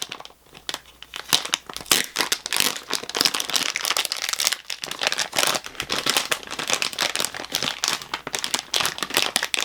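Plastic packaging crinkling and crackling as it is handled, in dense irregular bursts.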